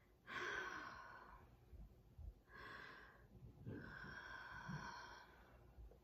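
A woman crying softly: three breaths, each heard as a sigh or sniff, the last about a second and a half long, the longest.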